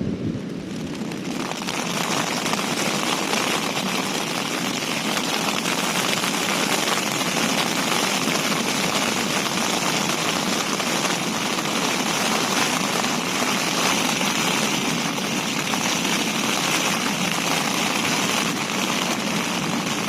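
Heavy rain falling steadily, an even hiss that swells about a second and a half in and then holds.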